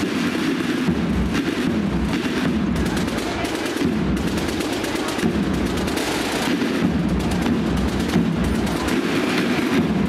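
Firecrackers going off in quick succession, a dense continuous crackle of bangs.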